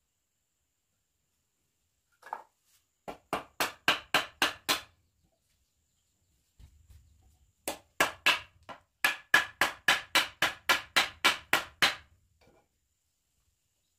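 A hammer driving nails into wood, with quick, even blows at about four a second. A short run of about seven strikes is followed, after a pause of about three seconds, by a longer run of about fifteen.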